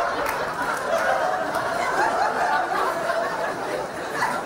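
Live audience laughing steadily after a punchline.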